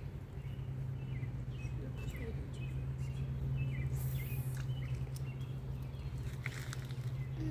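Small birds chirping in short, repeated descending notes over a steady low hum, with a few brief rustles and clicks.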